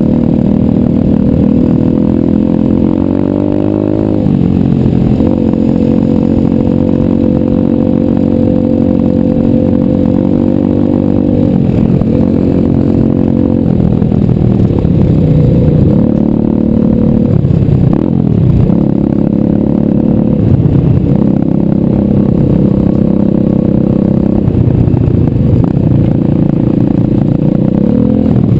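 125cc pit bike engine running under way, its pitch climbing and then dropping at a gear shift about four seconds in, then rising and falling again and again as the throttle opens and closes.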